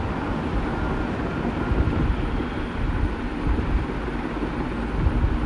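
Wind buffeting the microphone: a steady low rumble that swells and dips irregularly, over an even rushing noise.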